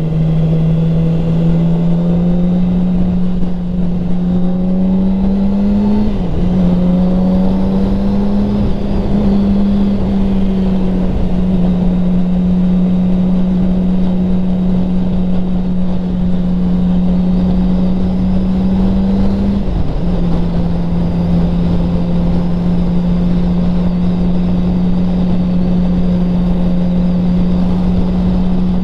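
2007 Yamaha R6's inline-four engine pulling at highway speed, a steady high drone that rises gently over the first few seconds and dips briefly in pitch about six seconds in and again around twenty seconds, over a heavy rush of wind and road noise.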